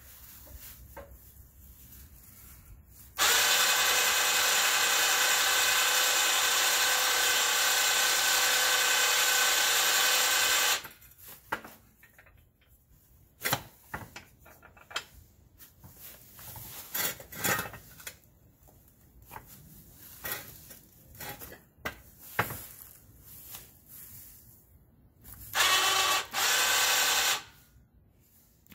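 A 2,500 lb electric winch on an engine hoist running under power: a steady motor whine for about seven seconds, then again for about two seconds near the end. Scattered clanks and knocks from handling the straps and axle in between.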